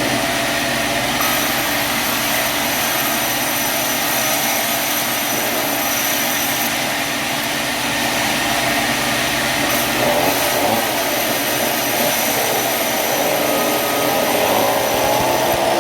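Sawmill machinery running steadily with a loud, even mechanical noise and a constant whine; near the end the pitch begins to waver up and down.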